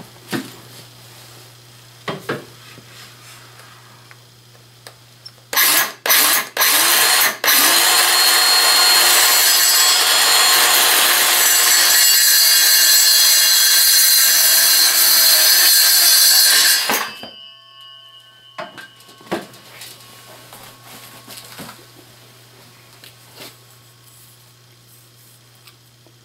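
Black+Decker 20V cordless circular saw started in a few short bursts, then cutting steadily through a 2x2 pressure-treated board for about ten seconds before the blade winds down. Light knocks of handling the wood come before and after.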